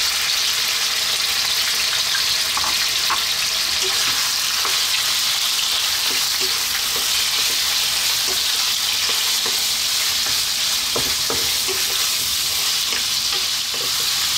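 Cubed lamb sizzling steadily in hot oil in a wok as it is browned, the first step of the stew. A wooden spatula stirs it, with small scrapes and taps against the pan that come more often in the second half.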